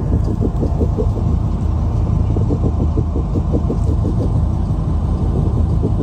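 Loud, steady low rumble with a fast, uneven pulsing over it: the unexplained noise that seems to come from about a foot underground and that sets metal fences and gates vibrating. Its cause is unknown.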